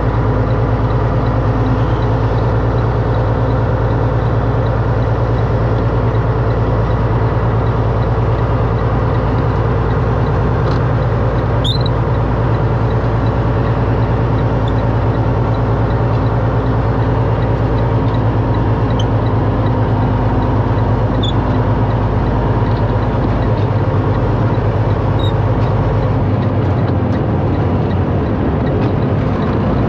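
Semi truck's diesel engine running steadily, heard from inside the cab as the truck drives slowly over dirt. The deepest part of the engine drone drops away near the end.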